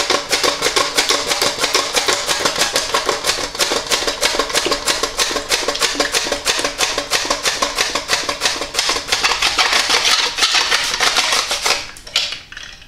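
Peeled Maris Piper potato being sliced on a plastic handheld vegetable slicer (mandoline) with a hand guard, pushed rapidly back and forth over the blade in fast, even rasping strokes, several a second. The strokes stop near the end.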